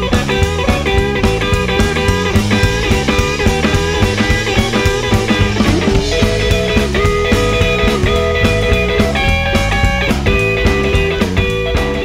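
Live rock band recording: electric guitar, bass guitar and drum kit playing a steady, driving groove.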